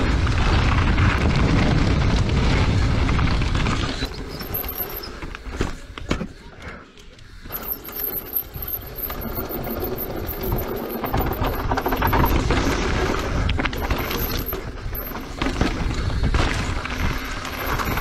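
Wind buffeting the microphone and tyres rattling over loose gravel and rock on a fast downhill trail descent. It drops away briefly about six seconds in, with a few sharp knocks around the gap, then the rushing noise builds back.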